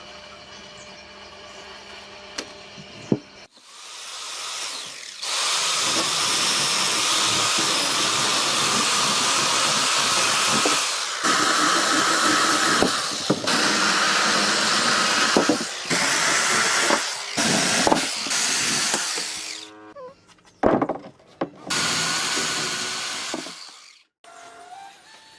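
A power tool working wood: quiet at first, then running loudly with a steady whine from about four seconds in, with brief breaks. It ends in a few short bursts near the end.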